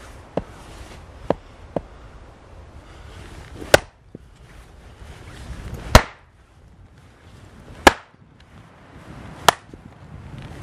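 Axe splitting a log round on a chopping block: a few light taps, then five heavy strikes about every one to two seconds as the round cracks and splits apart.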